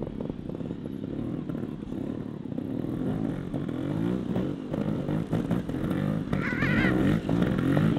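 Two trials motorcycle engines, faint at first, then revving up and down repeatedly as the bikes climb toward the camera, one lifting into a wheelie. They grow steadily louder.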